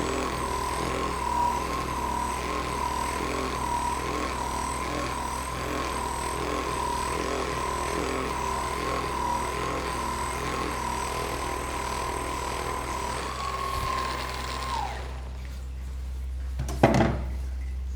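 A handheld percussion massage gun runs with a steady motor whine and rapid hammering, then winds down and stops about fifteen seconds in. A single sharp knock comes near the end.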